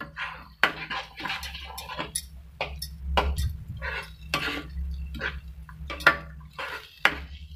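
Spoon stirring thick tomato chutney in a nonstick kadhai, with irregular knocks and scrapes of the spoon against the pan and the wet sauce.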